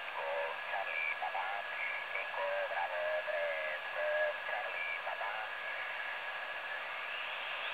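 TEN-TEC SP-325 shortwave receiver in lower sideband on the 40-metre amateur band, being tuned: a narrow hiss of band noise with garbled, off-tune sideband voice fragments for the first five seconds or so. A steady whistle runs underneath, and a faint rising whistle comes near the end.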